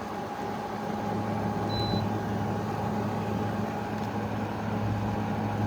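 Arctic King 5000 BTU window air conditioner running on high cool. Its compressor gives a steady hum under a steady higher whine, with the fans blowing air.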